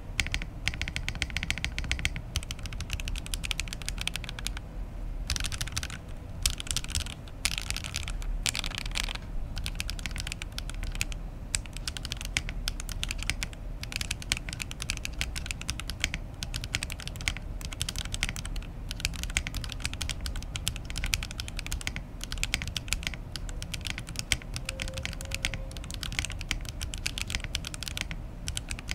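Typing sound test on an Oasis65 65% mechanical keyboard built with no foam: continuous rapid keystrokes with spacebar presses, the stabilizers swapped to V2U stabs. The sound has a slight hollowness and ring from the thin aluminium case.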